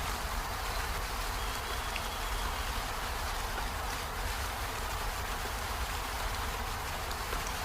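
Steady rain falling on peony flowers and leaves, an even hiss with a low rumble beneath. About a second and a half in, a faint thin high tone sounds for about a second.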